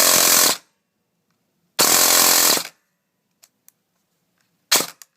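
Airsoft SCAR electric gearbox firing full-auto bursts on a 14.8 V LiPo made of two 7.4 V packs wired in series: two bursts of about a second each, then a short one near the end, a fast mechanical chatter with the motor whine running under it.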